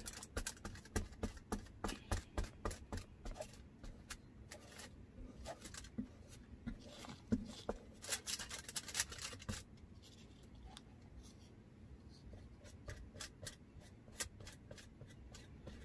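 Small brushes dabbing and stroking a thin coat of sealer onto an air-dry clay spoon rest: irregular light scratching and tapping strokes, busier in the first half and sparser near the end.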